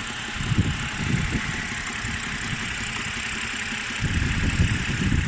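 BMW N52B25 2.5-litre straight-six engine idling with a dull knock, the noise the owner is trying to track down. The low thumping grows louder about four seconds in.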